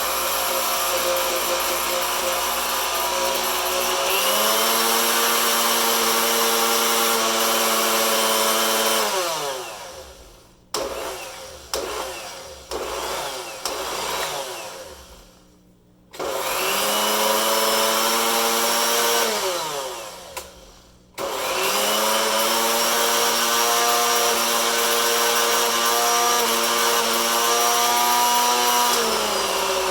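Hamilton Beach Scovill 14-speed blender motor whining as it is switched between speed buttons, its pitch stepping up and gliding down. It runs down and stops twice, with a few short bursts in between, before starting again at a higher speed.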